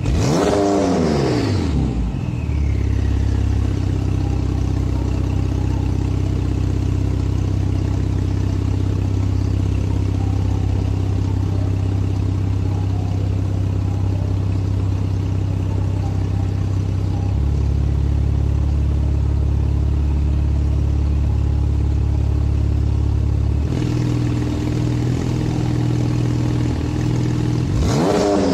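Porsche 991 Targa 4's 3.0-litre twin-turbo flat-six running through an Fi aftermarket exhaust. A rev falls back to idle in the first two seconds, followed by a steady idle whose note changes twice in the last third. A new rev starts rising at the very end.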